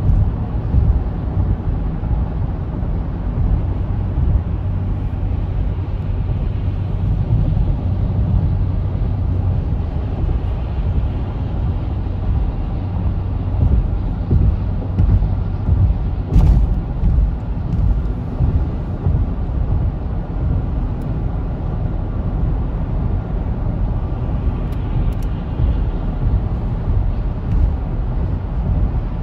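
Steady low rumble of road, tyre and engine noise inside a car's cabin while driving on a highway, with a brief click about halfway through.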